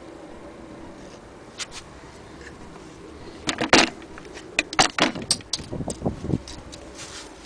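A quick run of clicks, knocks and rattles starting about halfway through, from the Singer 221K Featherweight sewing machine being handled, over a faint steady background.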